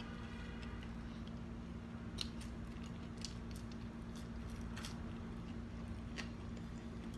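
A person chewing french fries with the mouth close to the microphone, faint wet mouth clicks every second or so over a steady low hum.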